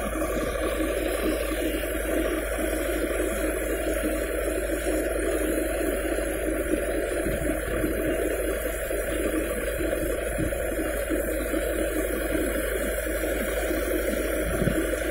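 Mustard thresher running steadily, driven off the PTO of a Farmtrac 60 EPI Powermaxx tractor: a loud, constant machine drone as stalks are fed in.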